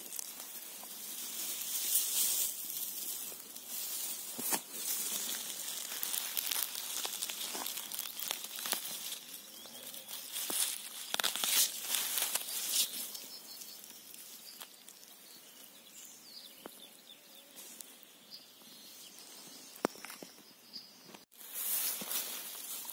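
Grass and undergrowth rustling and swishing as someone moves through it and parts it by hand, with scattered small snaps and crackles. It is louder in the first half and quieter for a few seconds after the middle.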